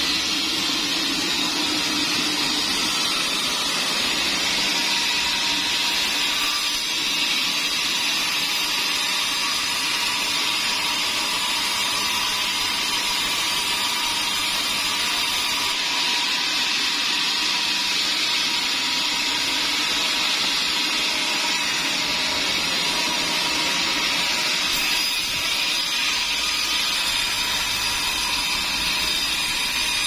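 Large band sawmill running steadily as its blade saws a big pine log, a continuous even machine noise with a faint steady tone.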